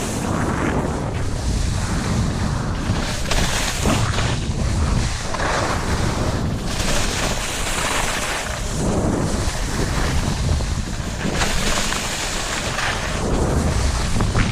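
Wind rushing over the microphone with the hiss and scrape of skis on snow during a downhill run, swelling and easing every second or two as the skier turns.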